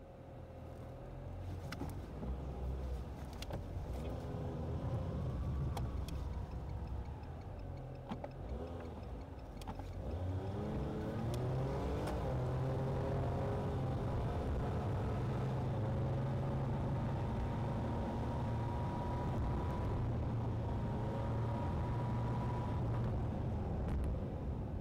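Car engine and road noise heard from inside the cabin. About ten seconds in, the engine note climbs as the car picks up speed, then it settles into a steady cruise.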